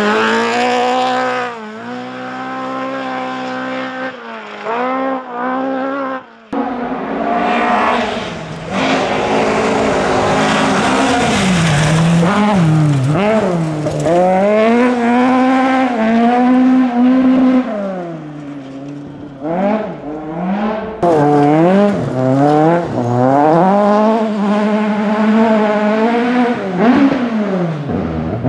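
Rally car engines revving hard on a gravel stage as several cars, a Ford Escort Mk2 among them, pass one after another. The engine note repeatedly climbs and drops with gear changes and lifts, and it changes abruptly where one car's pass cuts to the next.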